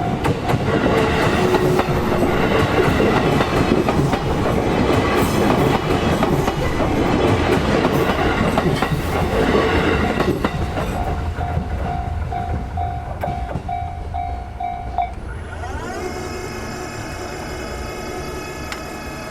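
An Ome Line electric train runs over a level crossing, wheels clattering over the rail joints. The crossing's warning bell rings in a steady pulsing rhythm, about two strokes a second. The bell carries on alone for a few seconds after the train has passed, then stops, and a short musical jingle starts near the end.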